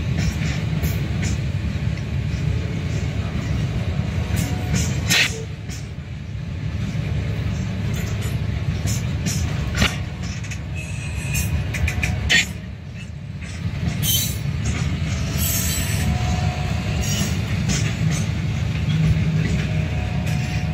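Freight cars (covered hoppers and tank cars) rolling slowly over a grade crossing: a steady low rumble of steel wheels on rail, broken by scattered sharp clicks and clanks. Heard from inside a car.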